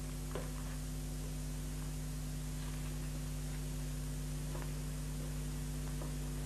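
Steady electrical hum with hiss, the background noise of an old television soundtrack, with a few faint ticks scattered through it.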